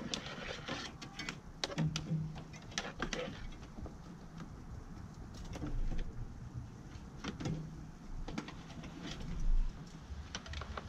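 Scattered clicks, taps and rustles of gloved hands working a thin power cable and plastic parts around the fuse box in a pickup's engine bay.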